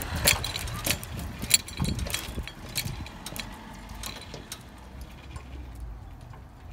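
A run of irregular sharp clinks and clatters, like broken glass knocking together. They come thick at first, then thin out and fade over several seconds.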